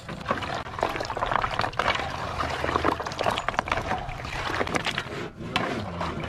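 Wooden disc wheels being stirred with a wooden stick in a plastic tub of red dye: the liquid sloshes and splashes and the wooden discs clack against each other.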